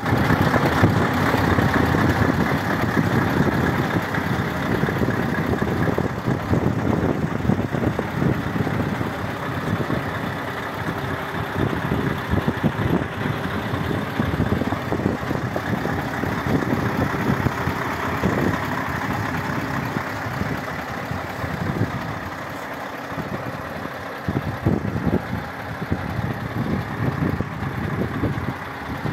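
Scania R580's V8 diesel engine idling steadily, a little fainter in the second half.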